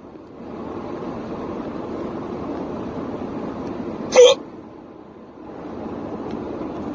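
A person's single loud, sharp hiccup about four seconds in, over steady car noise heard inside the cabin.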